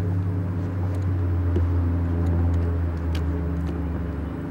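Boat motor running steadily at low speed, a low droning hum that swells a little and eases off near the end, with a couple of faint ticks.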